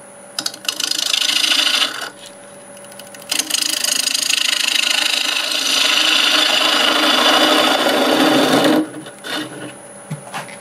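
A half-inch bowl gouge cutting across the face of a mimosa bowl blank spinning on a wood lathe at 800 RPM, with a rough, scraping cut. There is a short cut first, then a longer one of about five seconds, with the lathe humming steadily in between. A few light knocks follow near the end.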